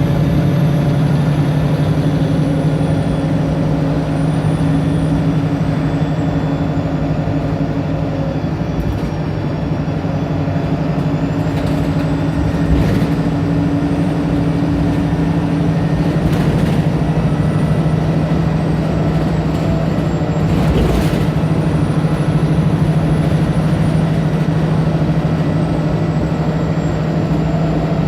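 Diesel engine of a VDL SB200 Wright Pulsar single-deck bus running steadily, with a faint high whine that drifts up and down. A few short bursts of noise cut in, the clearest about two-thirds of the way through.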